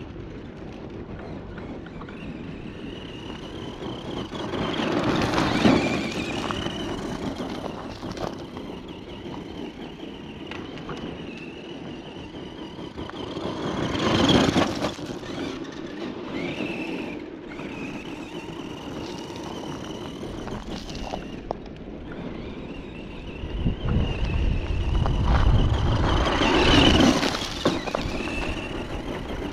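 Vintage Tamiya Blackfoot 1/10 RC monster truck driving on gravel: a steady high whine from its brushed Speedworks 350 motor and gears, with tyres crunching on loose gravel. It swells loudest three times, about five, fourteen and twenty-six seconds in, as the truck runs close by.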